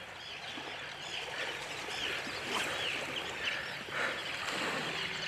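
A flock of seabirds calling over the water, many short arching calls overlapping throughout, over a steady hiss of wind and surf.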